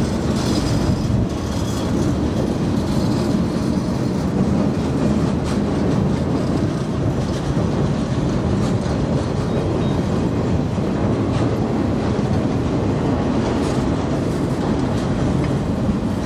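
Freight train of boxcars rolling past: a continuous rumble and rattle of steel wheels on the rails.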